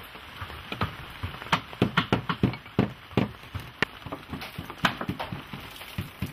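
Irregular sharp taps and knocks of hand work on a sewn boat's wooden hull as craftsmen tighten its coir-rope lashings, a few a second and unevenly spaced.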